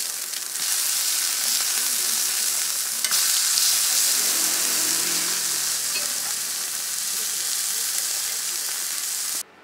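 Beef burger patties and fried eggs sizzling loudly on a hot flat-top griddle as a steady hiss, with one sharp click about three seconds in. The sizzle cuts off suddenly just before the end.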